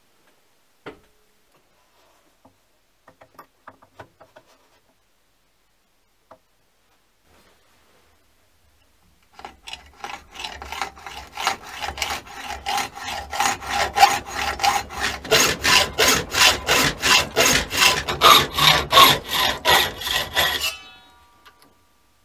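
Hand hacksaw cutting a metal bar clamped in a bench vise: steady back-and-forth strokes, about two a second, after a few scattered clicks. The sawing stops suddenly near the end, followed by a brief metallic ring.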